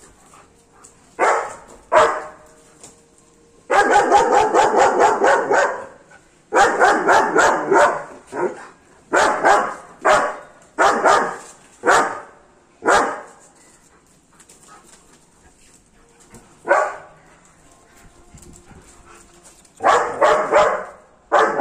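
German Shepherd barking loudly and repeatedly: single barks, then quick runs of barks, with a quieter pause before a last cluster of barks near the end.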